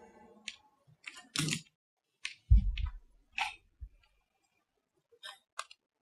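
Chalk tapping and scratching on a blackboard as a word is written, in short scattered strokes, with one louder, deeper thump about two and a half seconds in.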